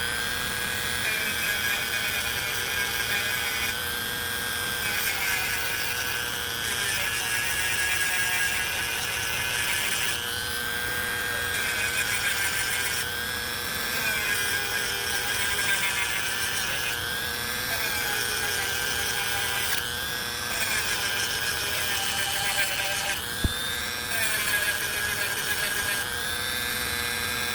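Dremel rotary tool running at high speed while sanding wood, its whine wavering in pitch every second or two as it is pressed into the work. One sharp tap late on.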